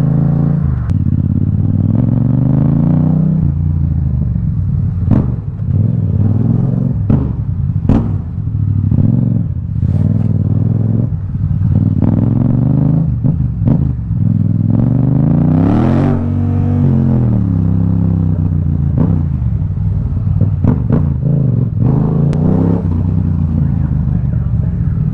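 Yamaha XSR700's 689 cc parallel-twin engine running through an Akrapovic carbon full-system exhaust with no silencer insert fitted, which the rider finds very loud. The motorcycle is ridden in traffic, revs rising and falling repeatedly with one big rev rise and drop about two-thirds of the way through. Brief sharp cracks are scattered between the revs.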